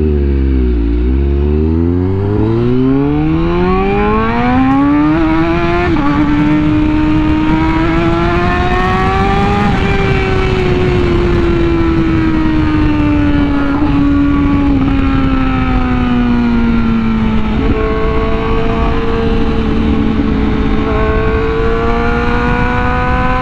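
Sport-bike engine heard from the rider's position under way. The revs climb for several seconds, drop at a quick-shifter upshift about six seconds in, and climb again. It then eases off and the revs fall slowly, jumping back up at a downshift about two-thirds of the way through. Wind rush is heavy on the microphone.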